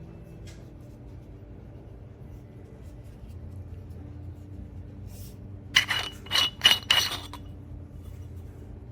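A quick run of about five sharp, ringing clinks of hard objects knocking together, over about a second and a half near the middle, above a faint steady low hum.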